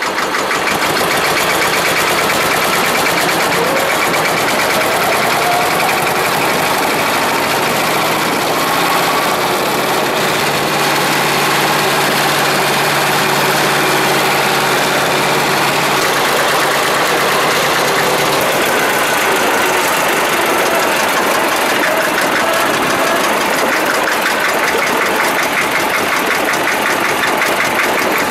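Deutz D25.2 tractor's air-cooled two-cylinder diesel engine running steadily while the tractor drives along.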